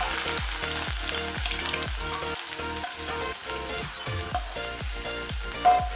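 Chopped onion and green chillies sizzling as they fry in hot oil in a kadai, stirred with a steel ladle. A short clink comes near the end.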